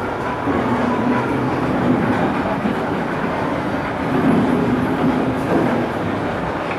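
Steady rumble of wheels running on a track, with a low hum that swells and fades.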